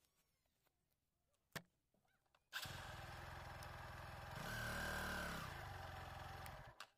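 Faint motorcycle engine that comes in suddenly about two and a half seconds in, runs steadily, rises in pitch briefly in the middle as if revved, and cuts off suddenly near the end. A single sharp click comes a second or so before it.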